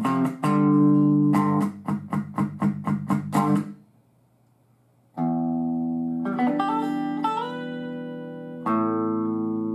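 Electric guitar played through a Marshall DSL-series valve combo amp. A run of quickly picked chords stops about four seconds in. After a pause of about a second, sustained ringing chords follow, with notes bent up over them and a fresh chord struck near the end.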